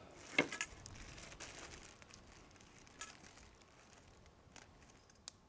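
Aluminium foil crinkling in the hands as a foil-wrapped food package is handled and opened, with a few light clicks. Faint.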